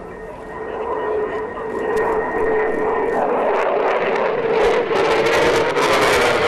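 F-15DJ fighter's twin Pratt & Whitney F100 turbofan engines, a steady whine under jet noise that grows steadily louder as the jet closes in for a low pass.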